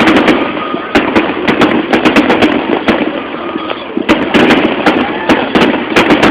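Fireworks going off in quick succession: clusters of sharp bangs and crackles over a steady background of booming, with the densest volleys around a second in, around two seconds in and just past four seconds.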